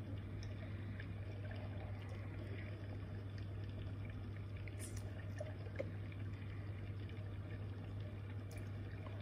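Faint, steady underwater ambience from the diving footage: a watery hiss over a low hum, with a few faint clicks.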